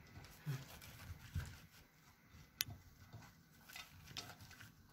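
Hands rubbing and crumbling pieces of harsha semolina flatbread over a ceramic plate: faint dry crackling and a light patter of falling crumbs, with one sharp click about two and a half seconds in.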